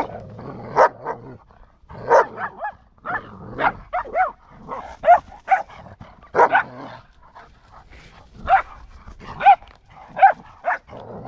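Dog barking: about fifteen short, high barks at irregular intervals.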